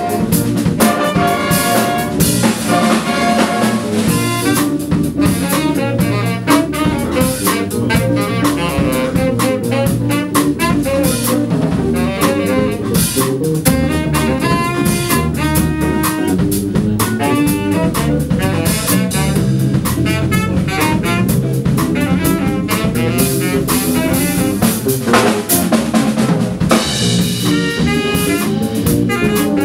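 Live student big band playing a funky jazz chart: saxophones and brass over a drum kit keeping a steady beat, with a standing saxophonist out front.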